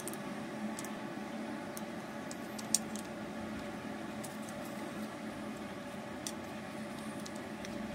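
Steady background hum and hiss, with a few faint ticks and one sharper click about a third of the way in as a knife slices through soft sponge cake on a paper plate.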